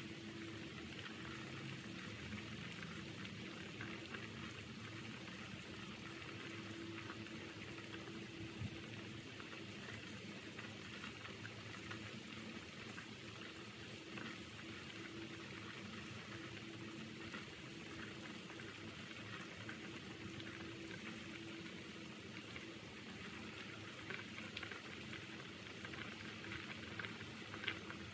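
Pot of pork bone and vegetable soup at a rolling boil: steady bubbling with many small pops.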